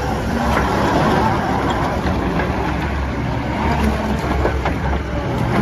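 Yanmar diesel engine of a John Deere 331G skid steer running steadily, with a slightly wavering tone over it and a few faint clicks.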